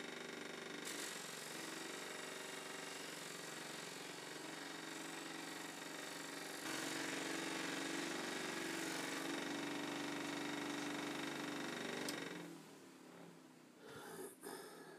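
Einhell bench grinder fitted with cloth buffing wheels running steadily while an antler knife handle is buffed on it. It is louder for several seconds in the middle, then is switched off about twelve seconds in and winds down, with a light knock near the end.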